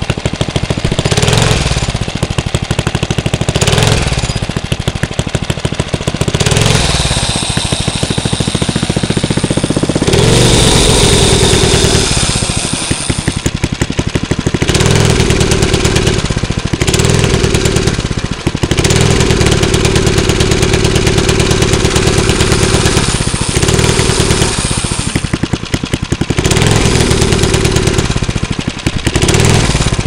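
Briggs & Stratton small single-cylinder engine on a 1968 Bird mini bike running with its rear wheel off the ground, revved up and let back down again and again, with longer held revs about ten seconds in and again around twenty seconds in.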